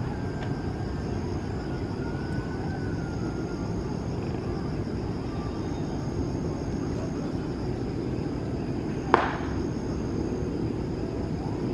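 Steady low rumble of a Boeing 737-800's jet engines at low power, heard from far off as the airliner rolls slowly along the runway. One sharp click about nine seconds in.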